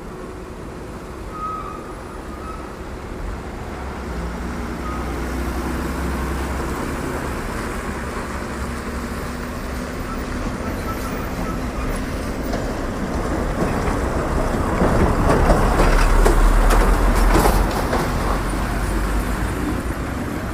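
Road traffic with a heavy vehicle's engine and tyres growing louder and passing close, loudest about three quarters of the way through, then easing off.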